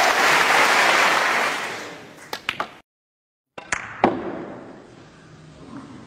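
Audience applause fading away, then sharp clicks of snooker balls. A few light clicks, a short break of dead silence, then two clicks in quick succession, the second the loudest, as a cue strikes the cue ball and balls collide.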